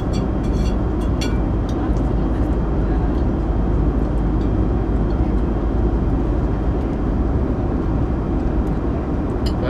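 Steady airliner cabin noise in flight: an even rumble and rush of engines and airflow. A few light clicks come in the first second or so.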